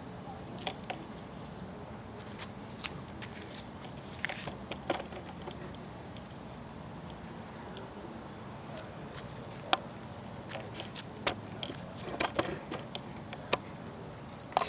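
A high insect trill pulses rapidly and evenly without a break. Scattered sharp clicks and taps sound over it, loudest near the end.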